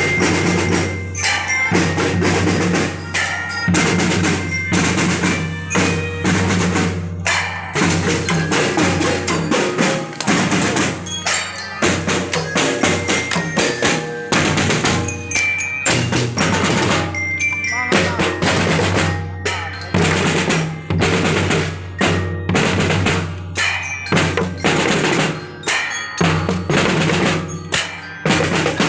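A school drum band playing: snare and bass drums beating a steady marching rhythm, with glockenspiel carrying short, high bell notes over it.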